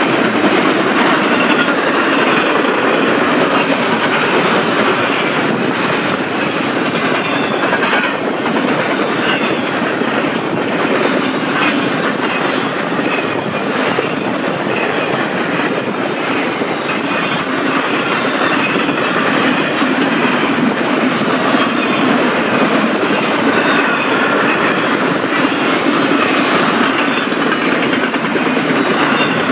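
Intermodal freight train cars rolling past at speed: a steady, loud rumble of steel wheels on rail, with wheels clacking over rail joints.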